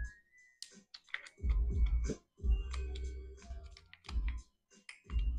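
Plastic and metal clicks and scrapes of a Streamlight TLR-7A weapon light being pushed and worked onto a pistol's accessory rail, with low thumps from handling the gun. The light is not seating on the rail.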